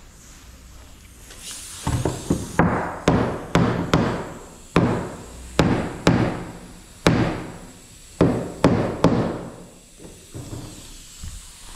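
A hammer striking wooden furniture parts during assembly: about a dozen hard blows at an uneven pace, each ringing briefly, starting a couple of seconds in and stopping a little before the end.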